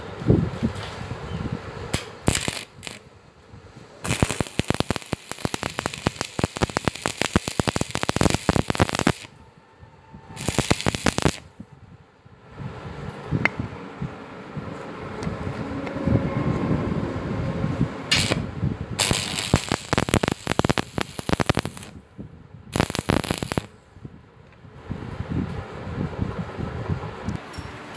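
Stick-welding arc crackling and spitting as a joint in steel tube truss members is welded. It comes in several runs of a few seconds each, with short breaks between.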